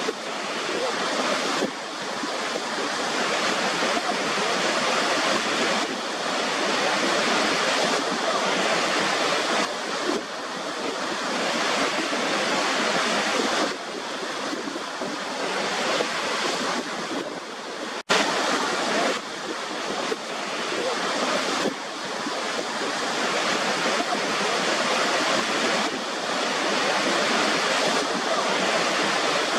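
Rushing water of a waterfall: a dense, steady hiss that swells and eases slightly every few seconds, broken by a momentary cut about two-thirds of the way through.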